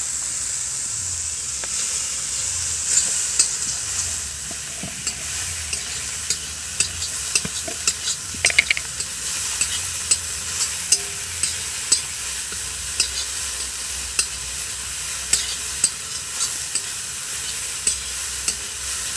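Soybean chunks, onion and spices frying in hot oil in a black kadai: a steady sizzle, with a metal spatula scraping and clicking against the pan as the masala is stirred.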